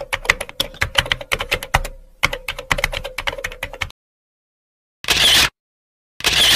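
Keyboard-typing sound effect: rapid key clicks, about ten a second, with a brief break partway, stopping about four seconds in. After a second of silence come two short, loud bursts of hissing noise.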